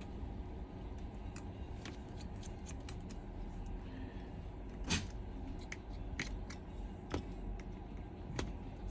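Small, sharp clicks and ticks of a precision screwdriver and tiny screws being worked out of an iPhone 11's internal plate and set down, one click a little louder about five seconds in, over a low steady hum.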